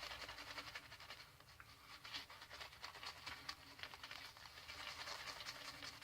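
Vintage GEM Pushbutton single-edge safety razor scraping through lather and stubble on skin: faint, quick scratchy strokes in short runs.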